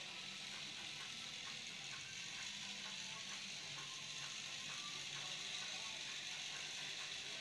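Battery-powered Tomy toy train running on plastic track: a faint steady whir from its small motor and gears, with light regular clicks about three times a second. It is running on weak batteries.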